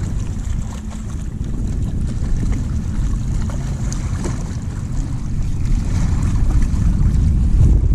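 Wind buffeting the microphone, a steady heavy rumble with a faint hiss above it.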